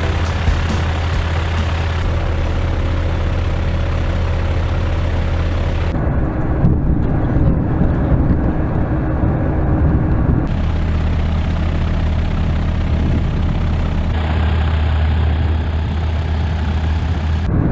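Zlin Z602 XL light aircraft's propeller engine running at low power on the ground, a steady low drone. Its sound changes abruptly three times.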